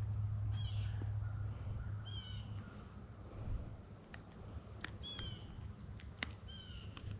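A bird calls repeatedly in short, high, down-slurred notes, one every second or so. Under it runs a low rumble that is heaviest in the first couple of seconds, with a few sharp clicks scattered through.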